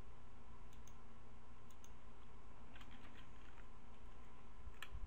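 A few scattered computer mouse clicks, the loudest near the end, over a steady low hum.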